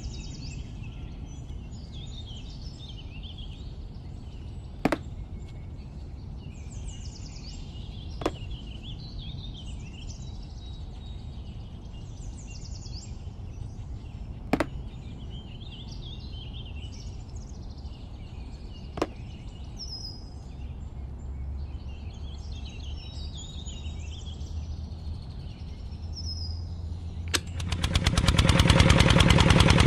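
Birds chirping over a low steady hum, with four sharp clicks spread through. Near the end a small motor starts and runs with a fast, even rattle, the loudest sound here.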